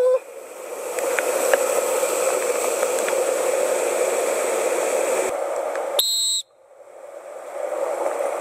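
Whitewater rapids rushing steadily around a kayak. About six seconds in there is a short, high tone, then the rush drops out briefly and swells back in.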